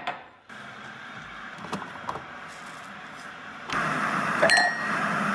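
Glass electric kettle heating water with a steady hiss, after a glass mug is set down on the counter with a clink. A little under four seconds in the sound turns louder and fuller as the water reaches a rolling boil, with a short ringing clink soon after.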